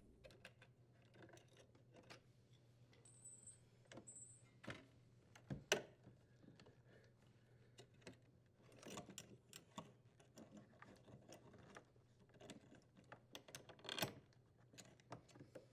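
Faint, scattered metallic clicks and light rattles from unthreading a power cord strain relief nut and pulling the strain relief free of a dishwasher's junction box, with two brief high squeaks.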